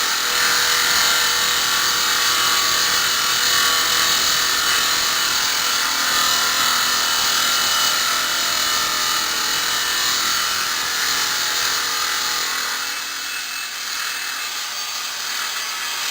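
Maqfort RM350 SRF granite-cutting machine running its circular saw blade through stone, a steady hissing grind that eases slightly about thirteen seconds in.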